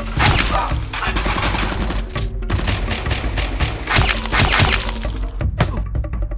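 Action background music under dense, rapid gunfire-like sound effects with shattering noises, in two long stretches with a short break about two seconds in, stopping a second before the end.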